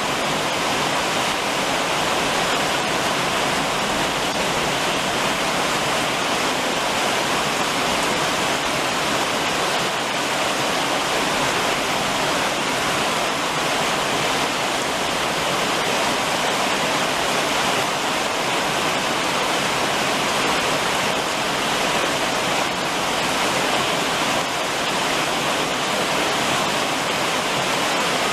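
Steady summer rain falling on a roof: a dense, even hiss of water that holds constant throughout.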